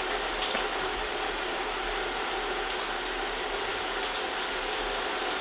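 Cornmeal-coated catfish fillets sizzling steadily in about half an inch of hot oil, around 340°F, in a cast iron skillet.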